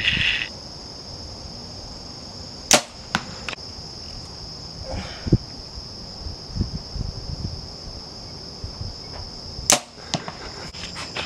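A compound bow shot twice, about seven seconds apart: each release is a sharp snap of the string, followed by a couple of fainter clicks. Crickets chirp steadily throughout.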